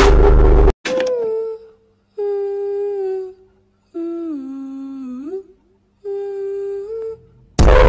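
A loud, harsh blast of sound cuts off abruptly under a second in. Then a voice hums a slow four-note tune: four separate held notes with pauses between, the third dipping lower and then gliding back up, over a faint steady low hum.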